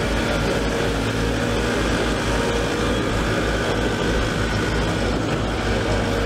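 Excavator diesel engine running steadily with a low pulsing rumble, while the machine's arm is worked.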